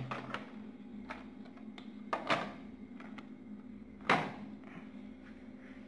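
Handling noise from blister-packed Hot Wheels toy cars: a few light clicks and taps of plastic and card, the loudest about four seconds in, over a faint steady hum.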